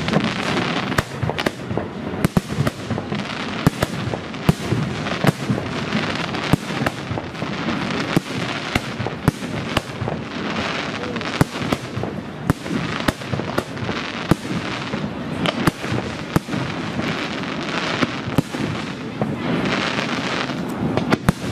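Aerial firework shells bursting in a fireworks display: sharp bangs at irregular intervals, often less than a second apart, over a continuous noisy background.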